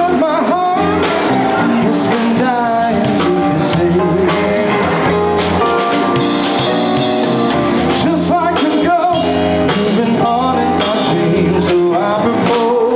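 Live rock band playing, with a lead vocal over electric guitar, bass and drums.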